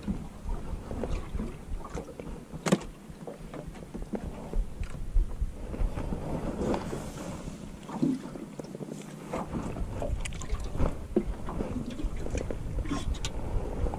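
Small waves lapping and slapping against the hull of an aluminium dinghy, with wind buffeting the microphone and scattered light knocks, a sharper one a little under three seconds in.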